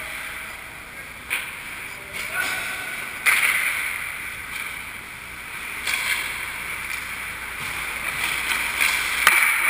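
Ice hockey skate blades scraping and carving on rink ice, with several louder scrapes, and indistinct players' voices in the background.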